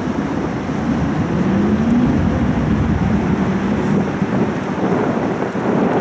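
Wind buffeting the microphone on a moving river tour boat: a loud, steady low rumble. A faint hum slides up in pitch about a second and a half in and then holds.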